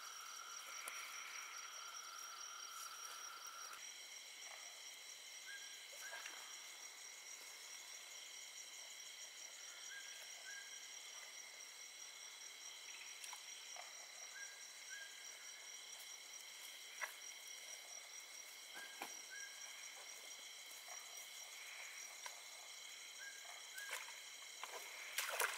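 Faint night-time insect chorus: crickets trilling steadily in several high pitches, with a short double chirp from another creature repeating about every four to five seconds. A few short knocks and rustles near the end.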